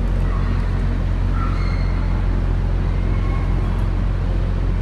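Steady low hum with a continuous background rumble and hiss; no speech.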